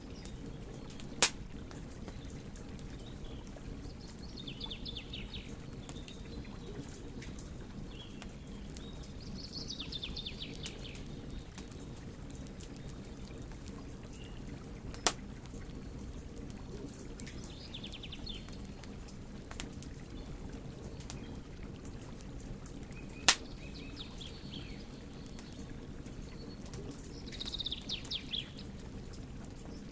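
Wood fire burning: a steady low rush of flame with faint scattered crackles, and three sharp loud pops, about a second in, halfway through, and late on. Short higher-pitched rattling bursts come every few seconds.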